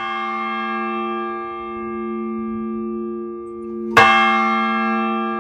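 Church bell struck twice, at the start and again about four seconds in, each stroke ringing on with a long, slowly wavering hum.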